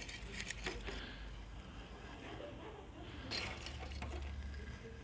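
Metal tongs clinking and scraping against lumps of charcoal in a braai grill as the coals are pushed around: a few faint clicks and rattles near the start and again about three seconds in.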